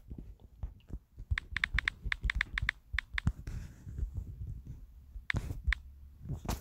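Typing on a smartphone's on-screen keyboard: a quick run of light clicks, about five a second, for a few seconds, then two more taps near the end.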